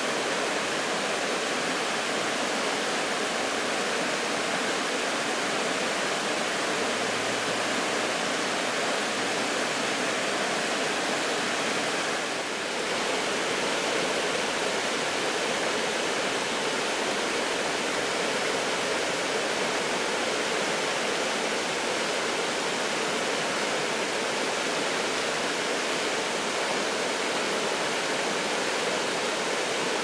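Mountain river rushing over a shallow, stony riffle: a steady, even rush of water.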